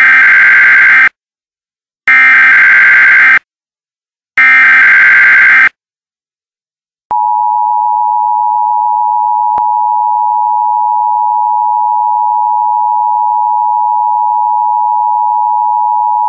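Emergency Alert System test tones: three short bursts of SAME header data, each lasting just over a second with about a second's gap between them. About seven seconds in, the steady two-tone EAS attention signal begins and holds.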